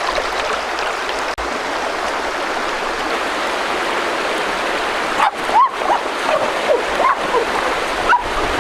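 Steady rushing of running water, like a forest stream. From about five seconds in, short high chirps sound over it.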